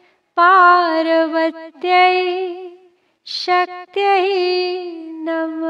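Woman's voice singing long held notes in a devotional chant, in several separate phrases with a slight waver in pitch and a short breath between phrases about three seconds in.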